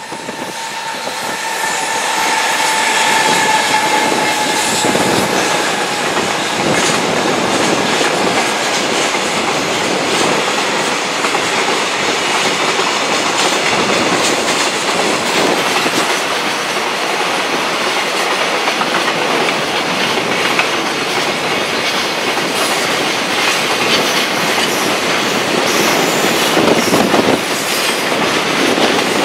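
Freight train passing at speed, its wagons clattering over the rail joints in a long run of rhythmic clicks. The sound swells up over the first few seconds, with a whine that drops slightly in pitch as the train arrives.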